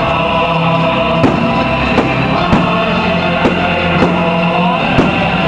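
Loud music with steady pitched tones, crossed by a sharp crack about every second.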